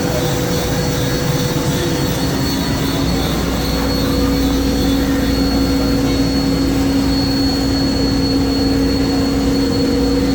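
1988 Mori Seiki SL4 CNC lathe running, a steady machine hum with a high whine over it, getting a little louder about four seconds in.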